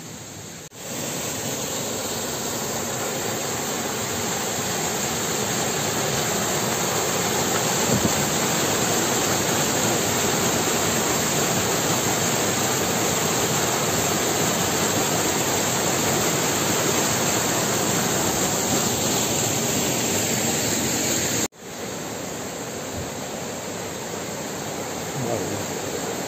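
Rushing water of a mountain stream or waterfall, a steady loud rush, cut off for an instant twice.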